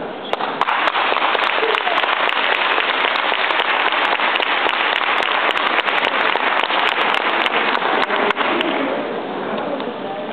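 Audience applauding: many hands clapping thickly together, dying away near the end.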